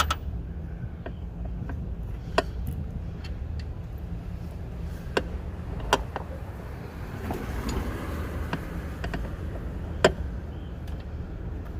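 Hand wrench and metal parts clinking in a car engine bay during alternator removal: a few sharp metallic clicks a few seconds apart, with a brief rougher rubbing sound around the middle, over a steady low rumble.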